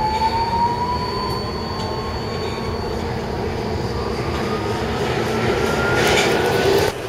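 Budapest M4 metro train (Alstom Metropolis) accelerating, its electric traction motors giving a whine that rises steadily in pitch over the rumble of the wheels. A louder rushing hiss builds near the end, then the sound cuts off suddenly.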